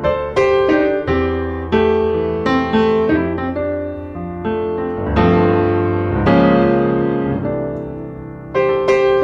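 Background piano music: struck notes and chords that ring and fade.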